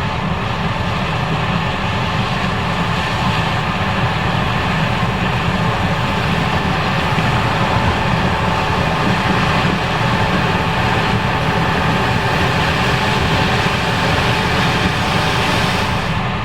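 Case IH 5140 Axial-Flow combine running steadily at work harvesting corn, its engine and threshing machinery making a constant heavy drone.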